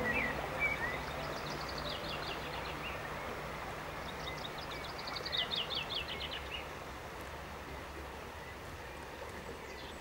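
Outdoor riverside ambience: a steady rush of flowing water, with a songbird singing twice. Each song is a quick run of notes falling in pitch.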